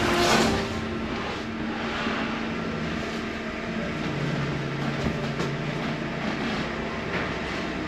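Steady vehicle running noise with a few passing whooshes. A strand of music fades out in the first half-second.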